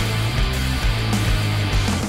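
Background rock music with a steady beat and a sustained bass line.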